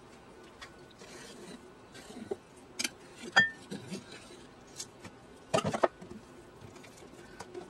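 Kitchen knife clicking and scraping against the rim of a glass pot lid as it cuts a circle of rolled dough, with a sharp glassy clink that rings briefly about three and a half seconds in. A quick cluster of knocks follows near six seconds as the lid is lifted off and put down.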